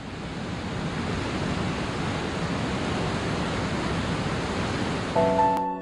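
A steady rushing noise, like surf or static, fades in at the start and holds level, then cuts off abruptly near the end. Just before it stops, a soft electric piano chord comes in.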